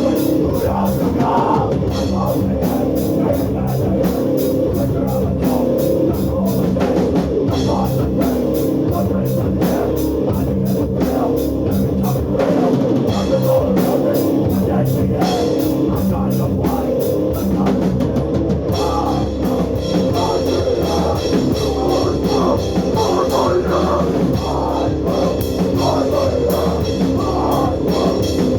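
A hardcore power-violence band playing live: heavily distorted guitars and bass over fast, pounding drums, loud and without a break.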